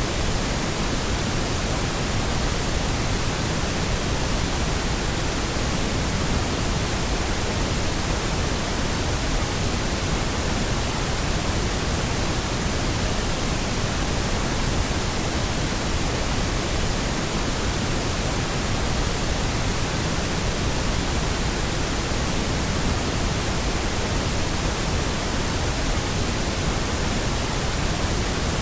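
Steady synthetic pink noise: an even, unbroken hiss across the whole range with a fuller low end than white noise, unchanging in level.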